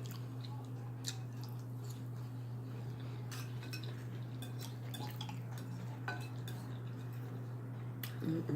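Cutlery tapping and clinking against a plate a few times, spaced out, over a steady low electrical hum.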